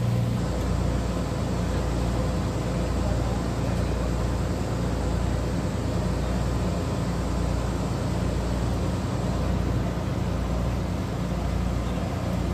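Steady low drone of a car ferry's engine under way, with an even hiss of wind and water over it.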